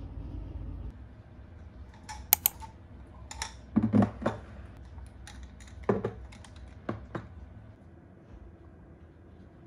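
Background music cutting off about a second in, then a dozen or so scattered sharp clicks and light taps on a hard surface, with a few duller knocks around the middle.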